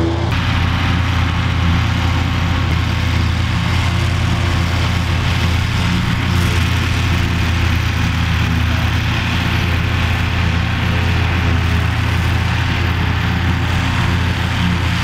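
New Holland 525 trailed forage harvester at work, its own P6 six-cylinder diesel engine running steadily under load while the pickup gathers a swath of cut grass.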